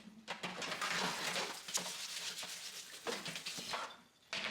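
Dishes and utensils clattering at a kitchen sink: a run of small knocks and scrapes lasting about three and a half seconds.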